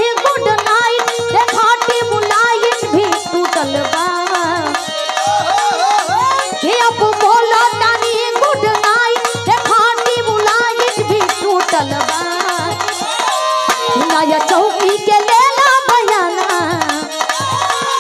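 Bhojpuri folk music played live: a hand drum beating steadily about twice a second under a wavering melodic line.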